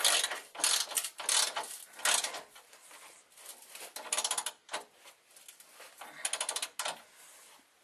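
Hand ratchet and socket clicking as mount bolts are run back into a new transmission mount: a few back-and-forth strokes in the first two seconds, then short runs of rapid clicks about four and six seconds in, dying away near the end.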